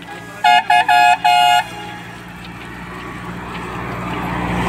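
A vehicle horn honks four times in quick succession, two short toots then two longer ones. Then the engine and tyre noise of an approaching bus grows steadily louder.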